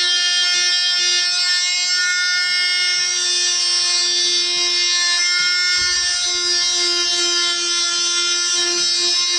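DeWalt DWE315 oscillating multi-tool running with a sanding pad, a steady high buzz as it sands stain off wood. A low bump comes about halfway through.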